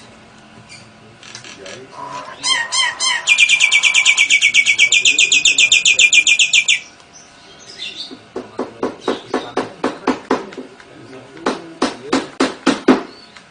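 Songbirds: a very fast, high trill held for about three and a half seconds, then a run of rapid, sharp clicking notes.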